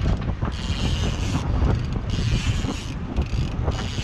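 Big-game fishing reel's drag buzzing in three surges about a second apart, over the low rumble of the boat and wind: a hooked fish is pulling line off the reel.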